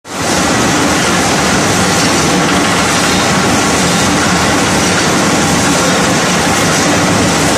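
Wood pellet mill running while it produces pellets onto the conveyor belt below: a loud, steady machine din with a constant hum.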